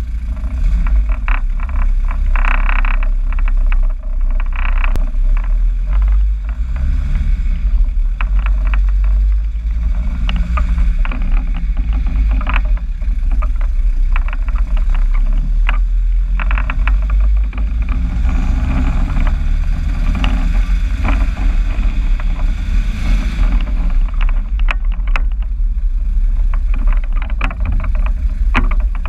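Vehicle engine running through a newly fitted exhaust: a steady, loud, deep rumble, with scattered short ticks and clicks on top.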